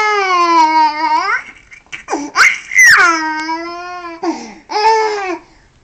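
An 11-month-old baby laughing while being tickled: four long, high-pitched squealing laughs, each bending up in pitch at its end, with short breaths between.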